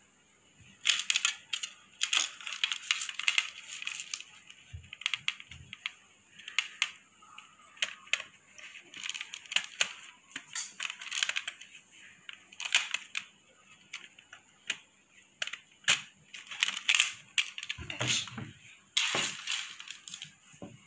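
Hands handling a gold-plated metal necklace and its small parts close to the microphone: irregular light clicks, taps and rustles of metal pieces and chain, a little louder near the end.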